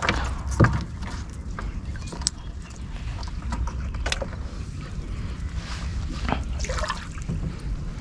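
A gill net being hauled in by hand from the water, with scattered small splashes, drips and clicks of net and fish over a steady low rumble.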